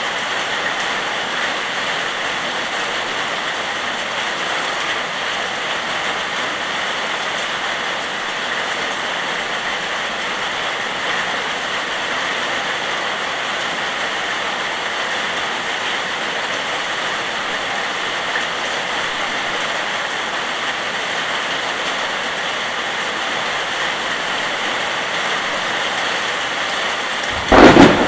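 Steady rain falling, an even hiss. About a second before the end, a sudden loud crack of thunder breaks in and rumbles on.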